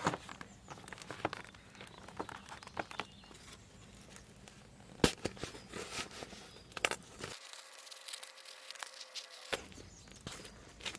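Hands working foam insulation onto a plastic engine cover: scattered rustles, taps and clicks, with one sharper knock about five seconds in.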